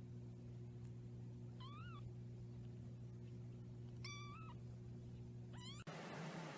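A cat meowing three times in short calls, the last one rising in pitch, over a steady low hum.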